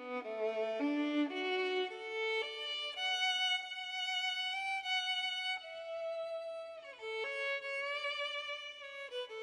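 Slow instrumental music: a violin plays a gentle melody of long held notes with slight vibrato, gliding down between two notes about seven seconds in.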